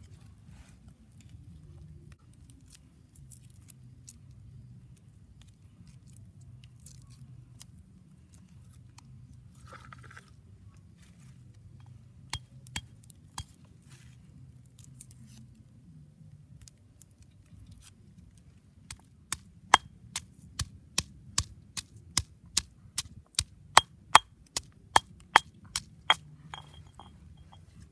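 Stone pestle pounding garlic in a stone mortar: a few scattered knocks, then a steady run of sharp stone-on-stone knocks, about two or three a second, in the last third.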